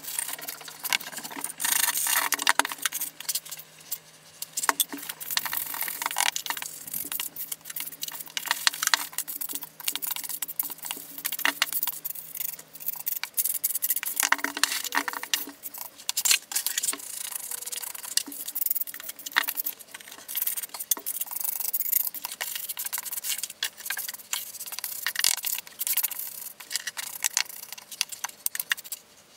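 Wooden float and steel trowel scraping and rubbing across wet deck mud (sand-and-cement mortar) as the shower pre-slope is packed and smoothed: a dense, gritty scratching broken by many small clicks. A low steady hum sits underneath and stops about halfway through.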